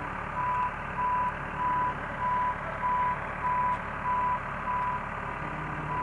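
Backhoe's reversing alarm beeping steadily, about three beeps every two seconds, over the low run of its diesel engine as it backs up, pulling on a chain.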